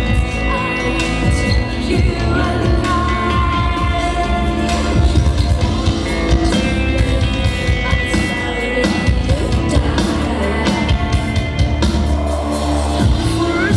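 A metal band playing live at full volume: guitars, bass and drums, with a female vocalist singing over them.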